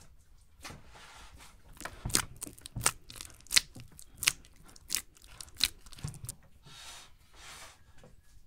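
Hands kneading soft, wet bread dough in an enamel basin: a run of sticky squelches and slaps about every two-thirds of a second, with the dough tearing and pulling between them.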